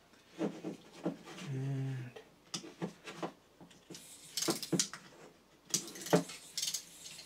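Irregular clicks and light clatter of small 3D-printed plastic robot parts and alligator-clip leads being handled and clipped together.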